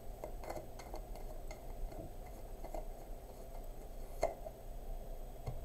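Tarot cards being shuffled and handled on a table: faint, irregular light clicks and snaps, with one sharper click about four seconds in.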